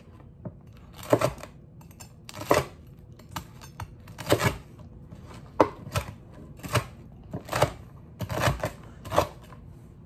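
A series of sharp taps of a kitchen utensil on a hard surface, irregularly spaced about one or two a second, as hot buffalo chicken tenders are handled.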